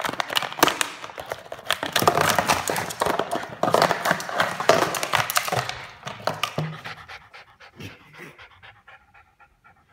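A plastic Coke bottle crackling and clattering as a small dog chews and paws at it. In the last few seconds this gives way to the dog panting quickly.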